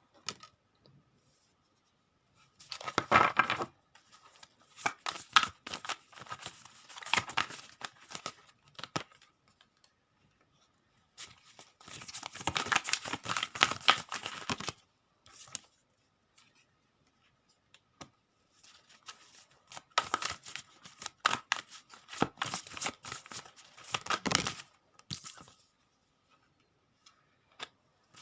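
Tarot cards being shuffled and handled in several bursts of shuffling, with pauses between.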